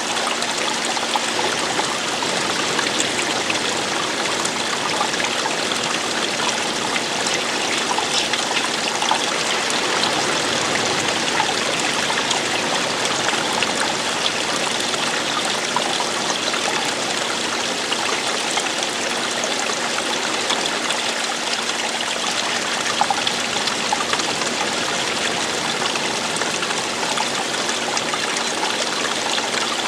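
Running water, a stream or small waterfall splashing over rocks, a steady even rush with small bubbling crackles.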